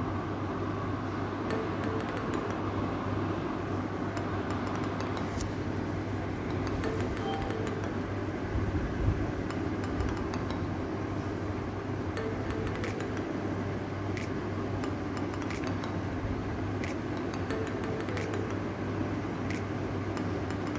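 A bobbattu flatbread cooking on a hot iron tawa, with faint scattered crackles over a steady low kitchen hum. There is a soft handling bump about nine seconds in.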